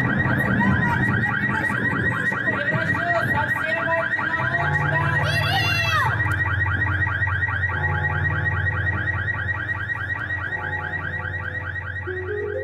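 Electronic alarm sound effect: a rapid warbling tone repeating several times a second over a steady low hum, with a bright falling glide about five and a half seconds in.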